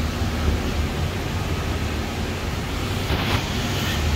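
Car wash bay equipment running: a steady hiss over a low hum.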